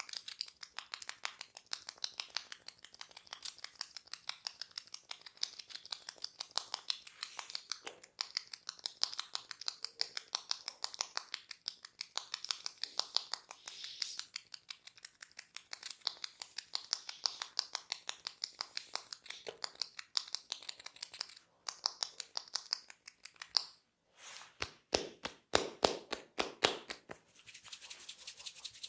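Fingers scratching and rubbing through hair on the scalp during a head massage, a fast, steady crackle of short scratches. Near the end comes a quick run of about ten sharper, louder taps.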